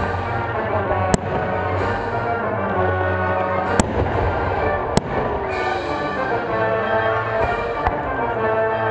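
Aerial firework shells bursting with sharp bangs, about four of them, over music that plays without a break.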